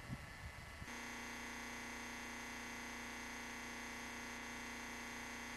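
A steady held tone with a full set of overtones. It starts suddenly about a second in, stays at one pitch and one level without wavering, and runs on for about five seconds.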